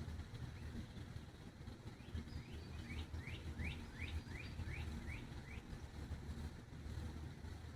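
A songbird calls a quick run of about ten short rising chirps, about three a second, starting a couple of seconds in and stopping just past the middle, over a steady low rumble.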